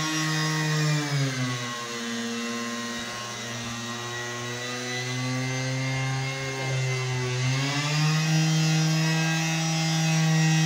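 Handheld electric marble cutter running and cutting marble floor tile, a steady motor whine. The whine drops in pitch about a second and a half in, holds lower, then climbs back up near the end.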